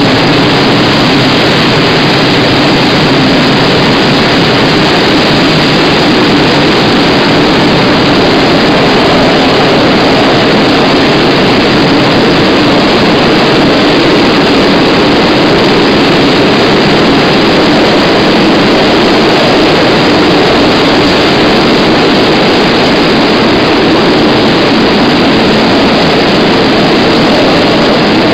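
Loaded double-deck car-carrier wagons of a freight train rolling past close at speed: a loud, steady noise of wheels on the rails that holds level throughout.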